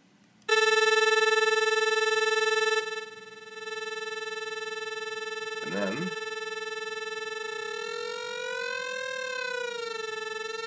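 Synthesized tone from a pair of software oscillators in a Max/MSP patch, their pitch driven by the heights of a simulated double pendulum's two spheres: a steady tone rich in overtones that switches on abruptly, drops in loudness about three seconds in, and bends up and back down in pitch near the end as the spheres move.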